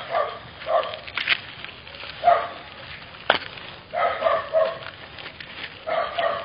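A dog barking repeatedly, single and double barks at irregular intervals, with one sharp click about three seconds in.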